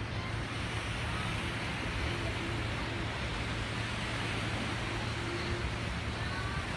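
Steady rushing noise of wind and sea over a constant low hum from the ship, as heard from a cruise ship's open deck.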